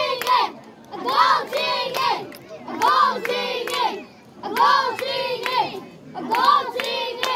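Crowd of spectators shouting in repeated rhythmic chants, a burst every second or two, with hand claps among them.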